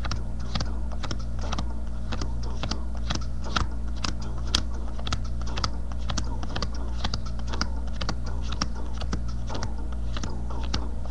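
Stack of trading cards being flipped through by hand: a run of quick, irregular light clicks as card slaps against card, several a second, over a steady low hum.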